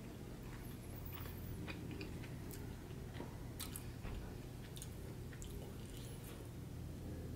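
Close-miked chewing of steak, with wet mouth sounds and scattered light clicks of a metal fork against a plate and a glass bowl, over a steady low hum.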